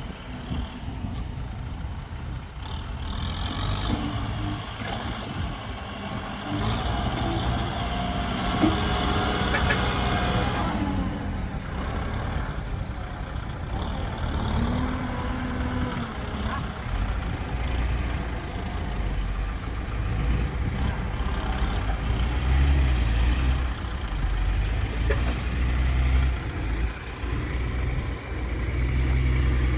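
Heavy vehicle engines of a tractor and a truck running under load, the low engine sound growing louder in the second half.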